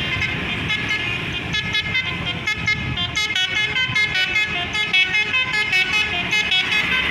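Telolet basuri musical vehicle horn playing a melody of quick, short notes in a rhythmic pattern, over a low rumble.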